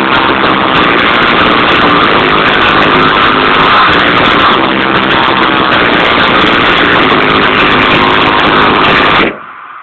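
Car audio system playing music at extreme volume, heavily distorted, with steady pitched tones. It cuts out abruptly near the end.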